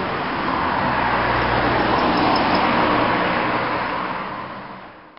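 A motor vehicle passing close by on the street, its engine and tyre noise swelling over the first few seconds and then fading away.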